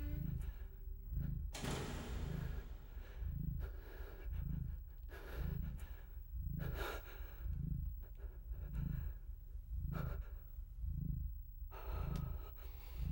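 A low, even thud repeating about once a second, with breathy gasps and sighs rising over it now and then.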